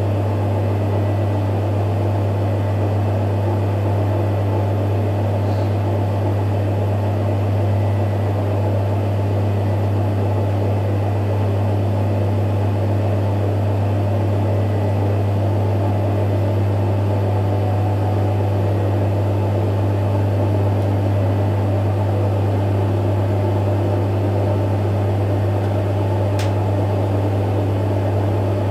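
Electrolux EWF 16589 W front-loading washing machine spinning fast: a steady low hum with a dense whirring above it, and a single short click near the end. The bearings are really very noisy.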